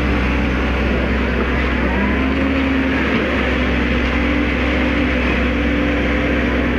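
Amphibious excavator's diesel engine running steadily under load, a constant low hum.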